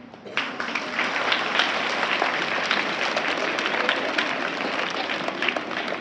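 A crowd of schoolchildren applauding. Many hands clap together, starting suddenly about half a second in and going on steadily.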